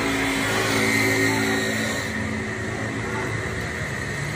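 An engine running steadily with a low hum, louder for the first two seconds and then settling.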